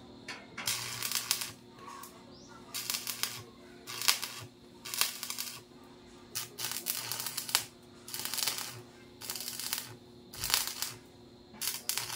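Stick arc welding on a steel sidecar frame: about ten short bursts of crackling and sizzling from the electrode, each half a second to a second long, with brief pauses between, over a steady low hum.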